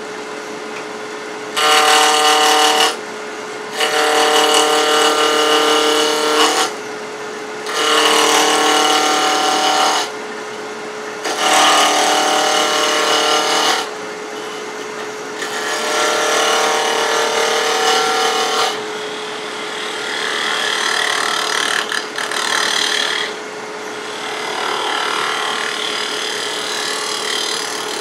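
A wood lathe runs with a steady hum while a gouge takes repeated cuts across the face of the spinning wooden blank. There are about seven cutting passes, each a loud scraping hiss with a ringing tone, with short pauses between them; the last two passes are softer and longer.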